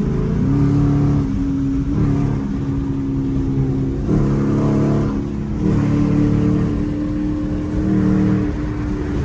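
Dodge Charger V8 engines running, their low note holding steady pitches that shift up and down a few times, about half a second, four and six seconds in.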